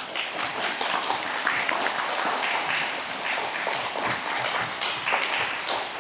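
Audience applauding an award winner, many hands clapping at once; it starts suddenly and keeps up steadily.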